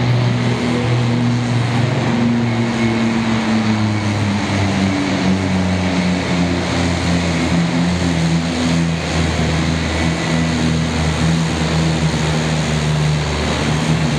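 Pulling truck's turbo diesel engine running flat out under full load as it drags a weight-transfer sled. Its pitch sags a little about halfway through.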